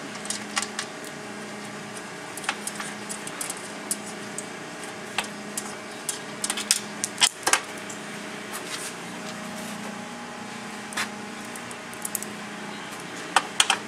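Scattered small clicks and taps of steel bolts and a metal mounting bracket being handled against a plastic UTV door panel as the bolts are pulled out and threaded back in by hand, over a steady low hum.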